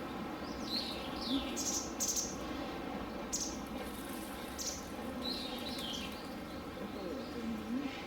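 Small birds chirping: short, high, falling calls repeated several times over a steady background hum.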